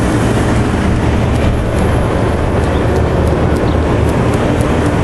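Steady, loud machine hum with a low rumble, unchanging throughout, with a few faint ticks over it.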